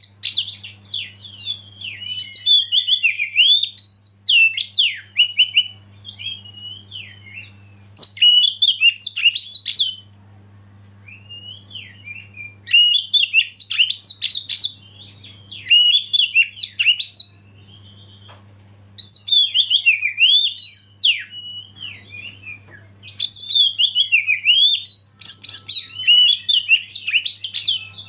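Oriental magpie-robin singing a fast, varied song of whistles and chatters, in bursts a few seconds long broken by short pauses.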